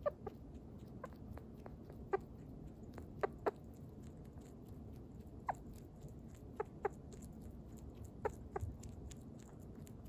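Sugar glider making its happy call: about ten short chirps, each falling quickly in pitch, mostly in quick pairs a second or two apart.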